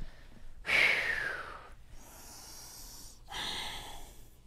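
A man breathing deeply and audibly while stretching forward in a yoga pose. There is a loud, breathy rush about a second in, then a quieter hissing breath, and another shorter breath near the end.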